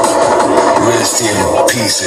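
Loud schranz techno played live from a DJ mixer: a driving kick drum with fast hi-hats, and a falling sweep near the end as the mix changes.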